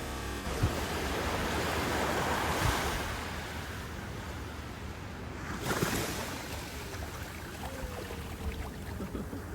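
Ocean surf breaking and washing up the beach: one wave swells over the first few seconds and another breaks about six seconds in.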